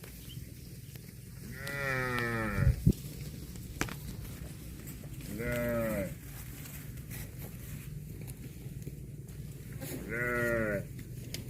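A farm animal calling three times, a few seconds apart, each call short, high-pitched and wavering, like a young animal's bleat or bawl. A sharp click comes right after the first call.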